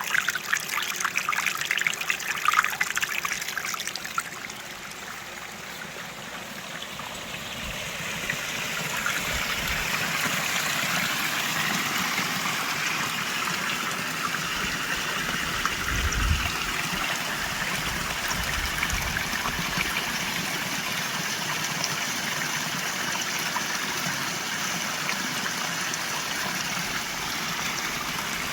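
Water from a small cascade splashing and trickling. About four seconds in it drops away, then from about eight seconds a steadier, even rush of falling water takes over.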